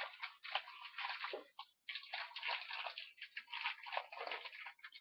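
Packaging of a Simpsons blind-box toy rustling and crinkling in irregular bursts as it is handled and opened by hand, with a brief pause about a second and a half in.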